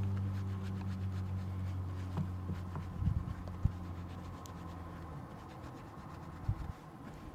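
Cloth scrubbing a car wheel rim with rim cleaner, with a few dull knocks. A low engine drone dies away over the first half.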